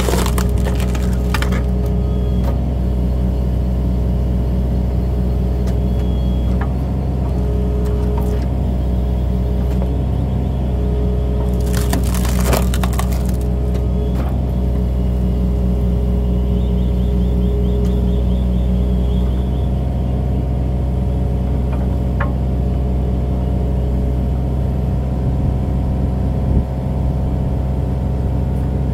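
Excavator engine and hydraulics running steadily while a hydraulic splitter blade is forced down through a hardwood log; the wood gives a few small cracks just after the start, then splits with a loud splintering crack about twelve seconds in.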